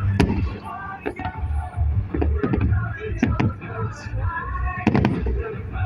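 Aerial fireworks shells bursting in a quick series of sharp bangs over a low rumble, with music playing along.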